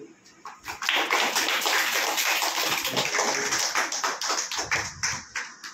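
Audience applauding: a burst of many hands clapping that starts about a second in and dies down near the end.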